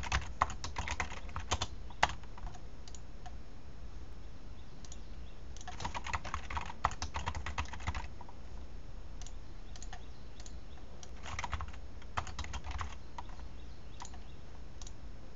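Typing on a computer keyboard in several short bursts of rapid key clicks separated by pauses, with a few single clicks between, over a low steady hum.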